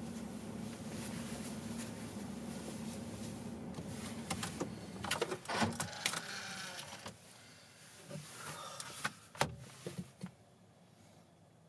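Steady hum inside a car that drops away about seven seconds in, with a scatter of clicks and knocks from handling in the cabin.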